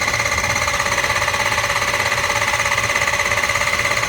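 Ford 6.0 Powerstroke V8 turbo-diesel, warm, being cranked over by the starter without firing: a steady starter whine over an even, rapid pulsing as the engine turns over. Under it is a faint, repeating kuh-thunk knock on each turn, a little knock the owner cannot explain.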